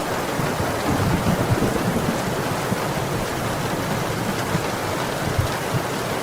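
Steady downpour of rain, an even hiss with a fuller, rumbling low end.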